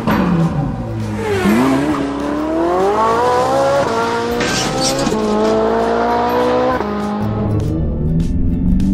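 Race car engine sound effect accelerating through the gears: the pitch climbs, drops back at each shift and climbs again, then cuts off near the end, over background music.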